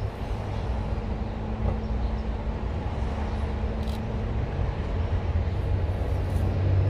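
CFR EA410 electric locomotive hauling a passenger train, approaching: a low rumble with a steady hum, growing louder toward the end.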